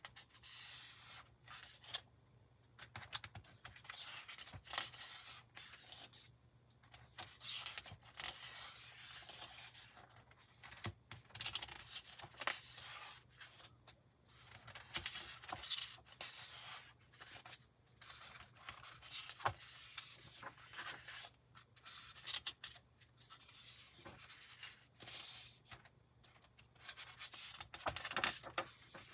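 Glossy magazine pages turned and smoothed by hand: irregular paper rustling and sliding, with sharper crackles as pages flip over.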